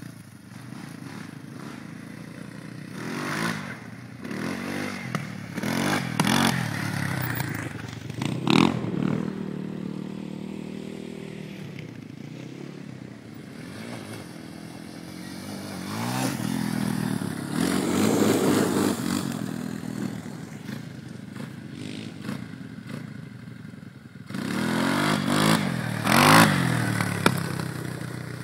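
Quad bike (ATV) engines revving and running as the four-wheelers ride around a dirt patch. The engine note swells and climbs in pitch several times, then drops back, and is loudest near the end.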